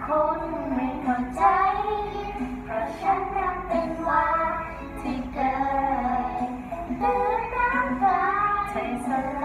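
A young boy singing a Thai pop song in long, held phrases.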